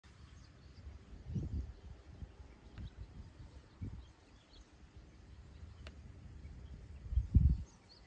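Wind buffeting the microphone in gusts, loudest about a second in and again near the end, with faint scattered bird chirps in the background.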